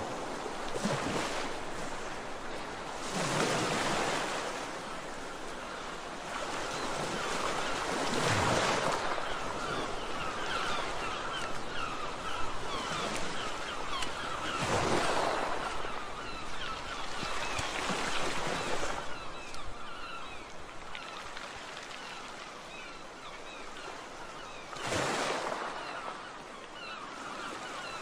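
Waves washing in on a shore, the rushing noise swelling and fading every few seconds. Short high chirps come through in the middle.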